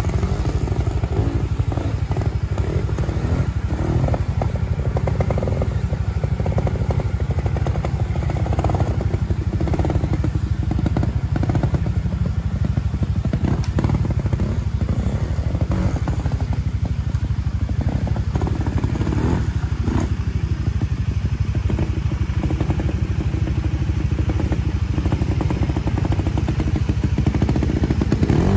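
Trials motorcycle engine running at low revs as the bike is ridden slowly over obstacles, with a few short rises in revs.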